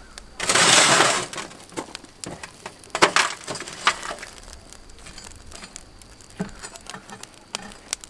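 Hot charcoal briquettes clinking and scraping as they are handled at a metal chimney starter and moved with tongs on a cast-iron Dutch oven lid. A brief dense rattle about half a second in, sharp knocks around three and four seconds, then light scattered clinks.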